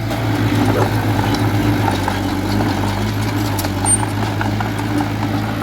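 Heavy construction machine's diesel engine running steadily at a low, even speed, with scattered light clicks over it.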